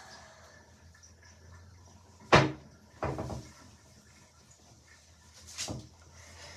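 A sharp thump about two seconds in, then softer knocks a second later and again near the end.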